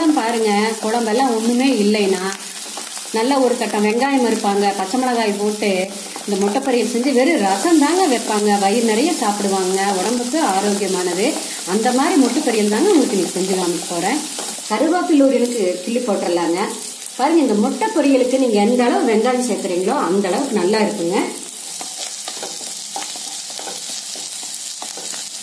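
Chopped shallots and green chillies frying in oil in a non-stick pan, stirred and scraped with a wooden spatula in repeated strokes over a steady sizzle. The stirring stops a few seconds before the end, leaving a quieter sizzle.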